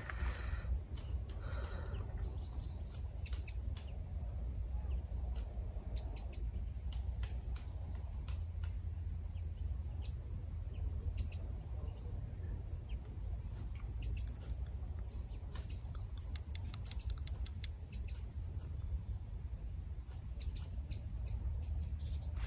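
Small birds chirping on and off, short high tweets scattered throughout, over a low steady rumble, with faint scattered clicks that bunch together about two-thirds of the way through.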